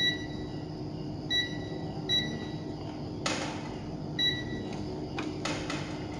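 Handheld digital multimeter giving four short high beeps as its buttons are pressed, with a few sharp clicks between them, the loudest about three seconds in. A steady low hum runs underneath.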